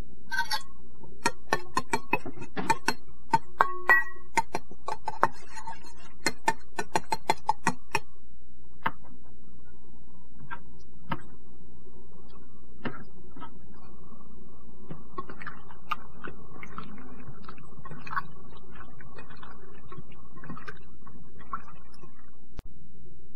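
Metal ladle clinking against a metal mixing bowl while stirring a soy sauce, sake and grated ginger marinade: a quick run of sharp clicks for the first eight seconds or so. After that come softer, scattered sounds as hands work chicken thigh pieces in the marinade.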